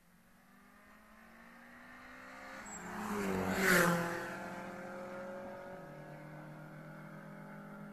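A street-raced car at speed approaching and passing close by: its engine note builds, peaks about three and a half seconds in with a drop in pitch as it goes past, then carries on fainter as the car pulls away up the road.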